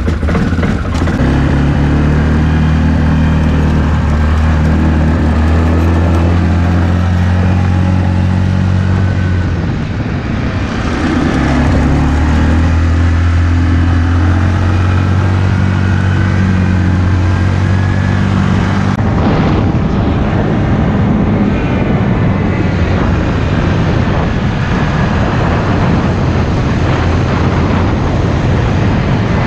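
Yamaha ATV engine running as the quad is ridden, a steady drone that drops briefly about a third of the way through and then picks back up. About two-thirds of the way through the sound changes abruptly to a rougher, noisier engine drone.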